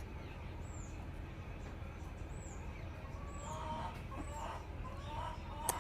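Birds calling in the background. A short high chirp falling in pitch repeats about once a second, and from about halfway a run of short, lower calls sets in. A sharp click comes near the end.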